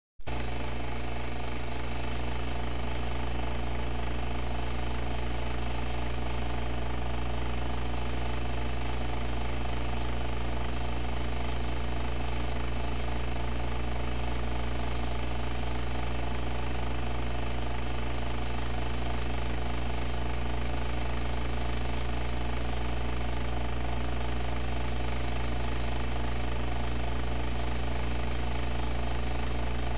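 A steady, unchanging low machine hum with a buzz of many overtones, starting abruptly.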